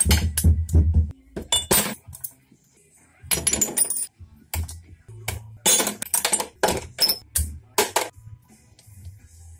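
Metal hand tools and engine parts clinking and knocking against each other and the workbench in a series of sharp clicks, with music playing in the background.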